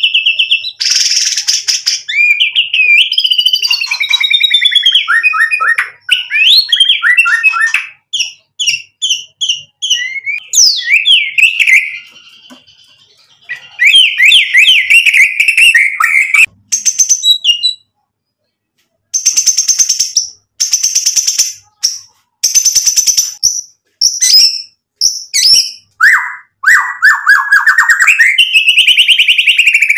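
Male white-rumped shama (murai batu) singing loudly and continuously: rapid trills and gliding whistles run into harsh, rattling rapid-fire phrases, broken by brief pauses.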